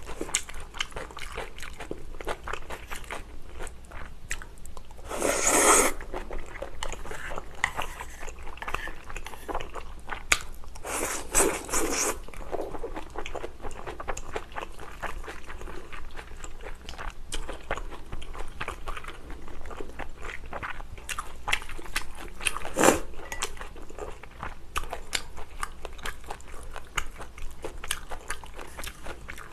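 Close-miked eating of spicy stir-fried glass noodles with beef brisket: steady wet chewing and biting with many small mouth clicks. Two louder sounds of about a second come around five and eleven seconds in, and a sharp one a little past twenty seconds.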